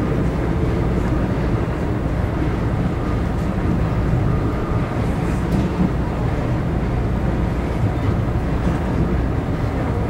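Electric commuter train running along the track: a steady low rumble of wheels on rails with an even hiss over it.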